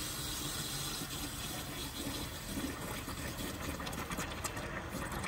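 Water from a garden hose running steadily into the radiator filler neck of a 1954 Dodge truck, filling the dry cooling system, with the freshly revived engine running underneath.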